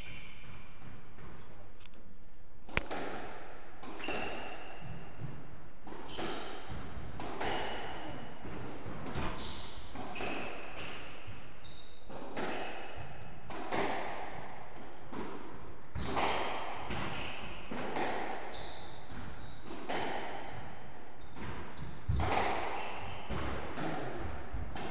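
A squash rally: the rubber ball struck by the racket and smacking off the court walls and wooden floor in sharp, irregular hits every second or two.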